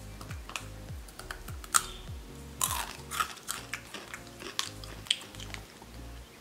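Crunchy chewing of a Takis rolled corn tortilla chip: a series of sharp, irregular crunches as it is bitten and chewed. Background music with a deep bass beat plays underneath.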